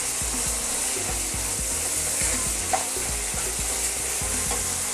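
Sliced onions and cumin seeds sizzling in hot oil in a wok while being stirred, with the spatula scraping and lightly knocking against the pan many times.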